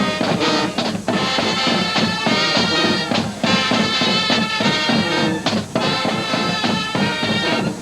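University marching band playing an up-tempo number: brass section over a steady drum beat.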